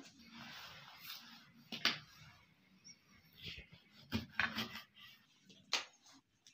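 Lemons handled on a plastic sheet and one cut in half with a kitchen knife: soft rustling, then several sharp clicks and taps.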